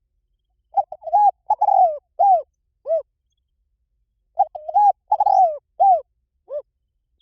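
Spotted dove cooing: two phrases of about six short, arching coos each, a second and a half apart. It is a lure call meant to draw wild doves in.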